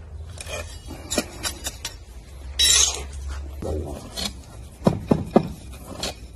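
Metal hand scoop scraping and shovelling gritty potting soil into a bonsai pot: a run of small clicks and grit rattles, with a louder hiss of sliding soil a little before the middle and a few sharper knocks later on.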